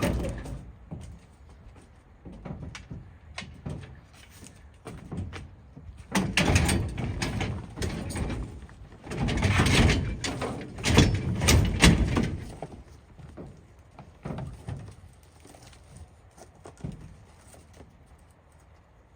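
Scrap metal being piled onto a load: clattering metal knocks and scrapes, loudest in three bursts from about six to twelve seconds in, with scattered single knocks around them.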